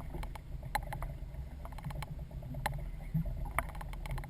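Low steady rumble of a small fishing boat on the water, with scattered sharp clicks and knocks, the louder ones about a second in, near the middle and near the end.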